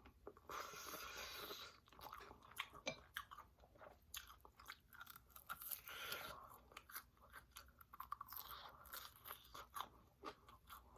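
Faint close-up chewing of crunchy, hard-fried food, with soft crunches and mouth clicks coming in a few short spells.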